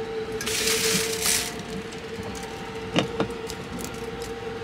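Steady hum of the Sunrise Seto sleeper train's compartment while it runs, with a brief burst of rustling noise about half a second in and two light knocks about three seconds in.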